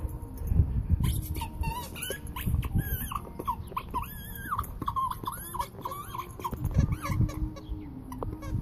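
Husky whining in a long string of short, high, wavering whimpers that rise and fall in pitch.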